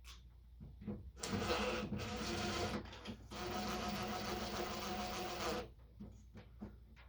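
Power drill/driver motor running in two bursts, the first about a second and a half long and the second about two seconds, with a short pause between.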